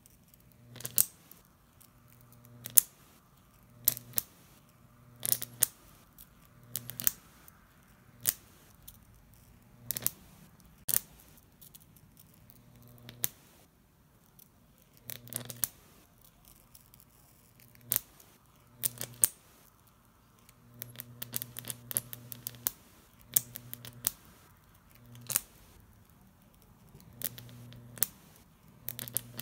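Homemade Jacob's ladder: the high-voltage arc between two copper wires crackles with sharp snaps about every one to two seconds, with a low buzz while the arc burns between them. A denser burst of crackling comes about two-thirds of the way through.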